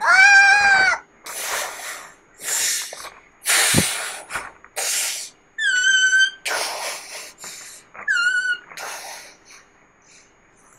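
A child's high-pitched voice crying in play: three falling wails broken up by noisy, gasping sobs, with one low thump a little before the middle.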